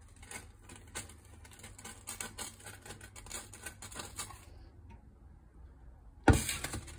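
Cooking oil heating in a nonstick frying pan, giving light irregular crackling and ticking that dies away about four and a half seconds in. About six seconds in there is a single loud knock.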